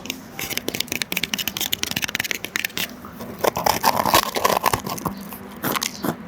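Crisp hollow gonggalppang (Chinese puffed bread) being cracked and broken apart by hand: a dense run of small crackles and crunches, loudest a little past halfway.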